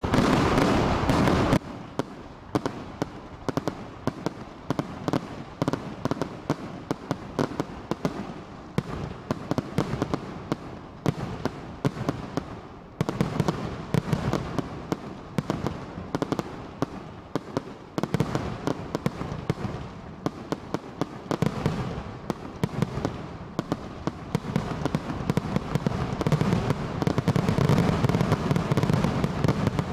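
Aerial fireworks finale: a rapid, near-continuous barrage of shell bursts, many sharp bangs a second over a rumbling wash. It is heaviest in the first second and a half, swells again about thirteen seconds in, and builds to its densest near the end.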